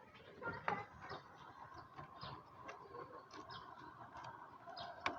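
Cat eating: faint short clicks of chewing and licking, scattered irregularly, over a steady background hum.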